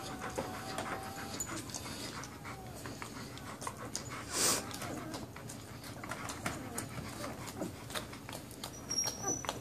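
Mother dog panting while her litter of puppies nurses, with soft clicks and rustles of the puppies at her. One louder breathy burst comes about halfway through, and a short high squeak near the end.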